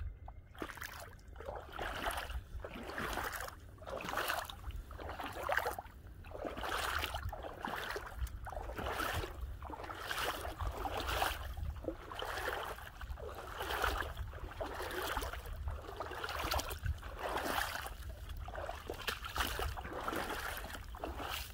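Footsteps splashing and squelching through shallow water and mud at a steady walking pace, a little over one step a second.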